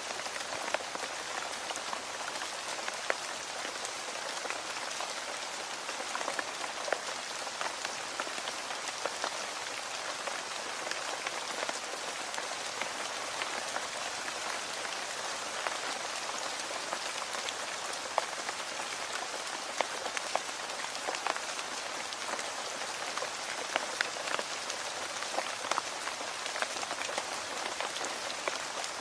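Steady rain falling on a surface, a continuous hiss dotted with many distinct drop taps.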